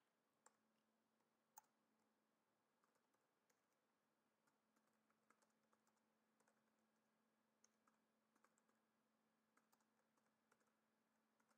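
Very faint computer-keyboard typing: scattered soft key clicks, two slightly louder ones in the first two seconds, over a faint steady hum.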